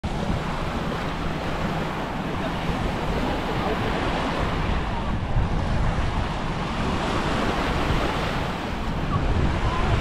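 Small waves washing onto a sandy shore in a steady hiss, with wind buffeting the microphone in a low rumble.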